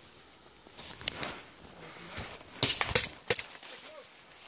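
Someone moving fast through woodland, with rustling and crunching in dry leaf litter and brush. A quick cluster of loud, sharp cracks and knocks comes a little past halfway.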